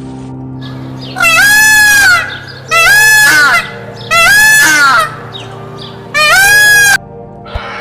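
Domestic fowl calling: four loud, drawn-out calls of about a second each, with short gaps between them, over steady background music.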